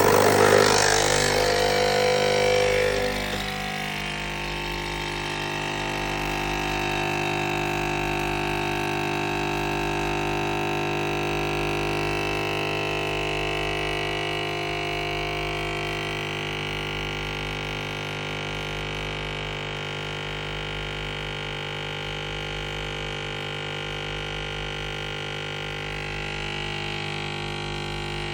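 Breville Nespresso capsule machine brewing a long cup: its pump starts abruptly, louder for the first few seconds, then settles into a steady buzzing drone with a low hum.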